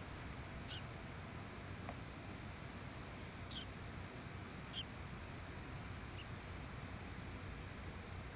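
Four brief, high-pitched animal chirps spaced a second or more apart, the last one faint, over a steady low background hiss.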